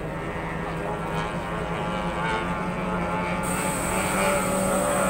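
Racing speedboat engine running at high revs with a steady, high whine, growing a little louder near the end as the boat comes closer.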